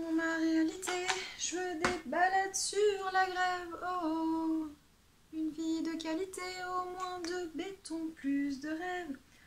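A woman's voice singing a slow melody without words in long held notes, in two phrases with a short pause about halfway.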